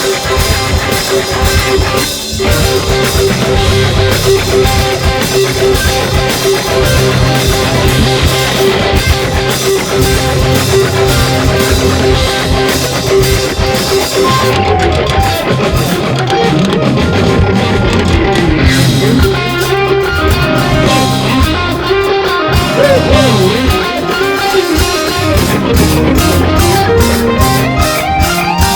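Rock band playing live: electric guitar over a drum kit and bass, with no singing, and guitar lines bending in pitch in the second half.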